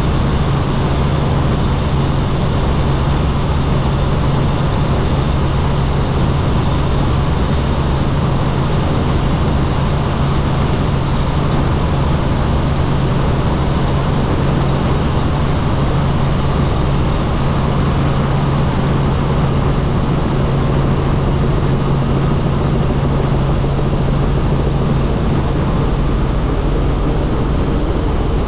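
Helicopter in flight: a steady, loud drone of rotor and engine that holds unchanged throughout, with a strong low hum under a broad rushing noise.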